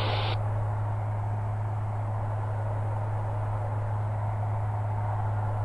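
Steady in-flight cabin drone of a Maule light aircraft's piston engine and propeller, a constant low hum. A brief hiss cuts off about a third of a second in.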